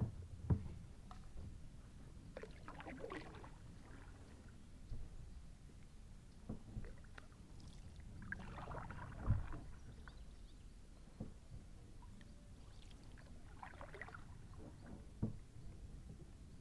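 Kayak paddle dipping and splashing gently in calm river water, three slow strokes spaced about five seconds apart, with a few short dull knocks.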